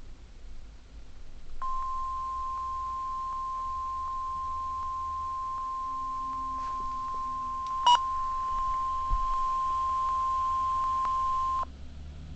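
NOAA Weather Radio warning alarm tone (the 1050 Hz tone) from a Midland HH54 weather radio's speaker: one steady tone that starts about a second and a half in, holds for about ten seconds and cuts off suddenly near the end. A sharp click sounds partway through.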